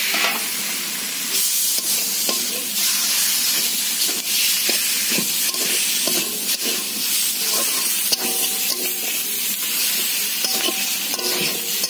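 Food frying and sizzling in a steel wok as steamed taro leaves and shrimp are stirred with a steel spatula, the spatula repeatedly scraping and knocking against the pan.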